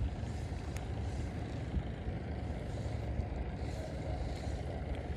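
Steady low rumble of wind and handling noise on a camera worn close to the body, with a few faint ticks.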